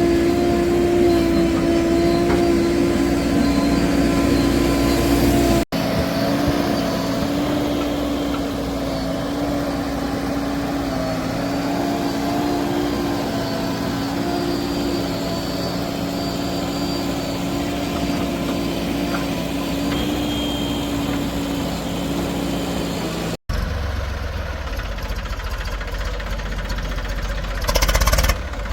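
Heavy vehicle engine running steadily at a constant speed, cut twice by abrupt edits. After the second cut a lower, rougher engine sound takes over, with a brief loud burst of noise near the end.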